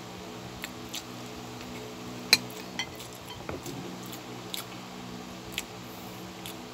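Metal spoon and fork clicking and scraping against a plate of rice, a handful of scattered clinks with the sharpest about two seconds in, along with soft chewing. A steady low hum sits underneath throughout.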